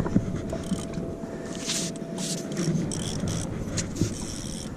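A boat motor runs steadily under scattered knocks and short scrapes from a landing-net pole being handled against the boat. A thin steady whine fades out about halfway through.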